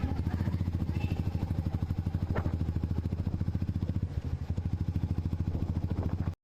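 Royal Enfield Classic 350's single-cylinder engine running with an even, steady thump. It cuts off abruptly near the end.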